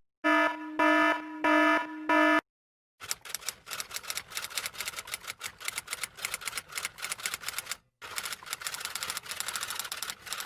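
An electronic alarm beeps four times in quick succession. After a short pause comes a fast, continuous clatter of typing keys, which breaks off briefly about two-thirds of the way through.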